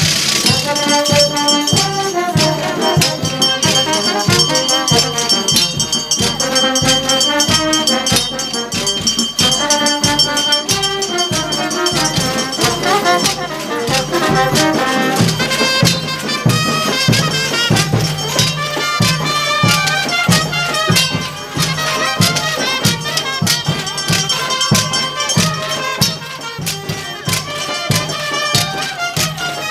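Festival brass band playing a lively traditional tune, with drums and rattling percussion keeping a steady beat.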